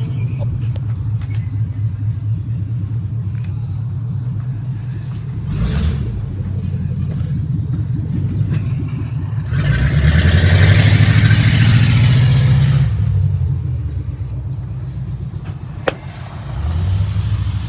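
Steady low rumble of a vehicle heard from inside the cabin. About ten seconds in it swells into a louder rush for around three seconds, and there is one sharp click near the end.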